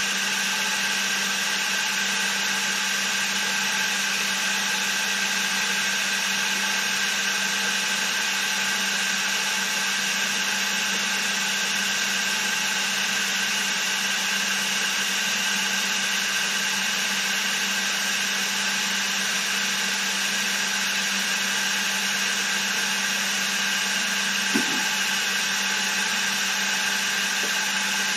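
Milling machine spindle running steadily, spinning an edge finder: a constant machine whine made of many steady tones. A single small click near the end.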